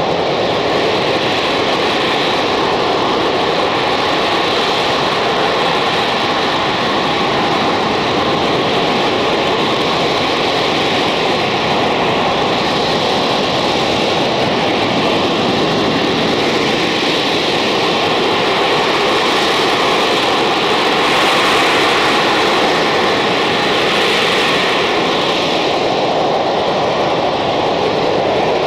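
Spanish AV-8B Harrier II's Rolls-Royce Pegasus turbofan running at high power: a loud, steady jet noise that holds level without let-up.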